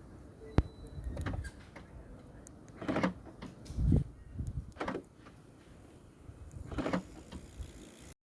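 A car's electric windows and central door locks being worked by the repaired remote key: a sharp click about half a second in, then several short whirring and clunking actuations, the loudest a heavy thud about four seconds in. The sound cuts off abruptly near the end.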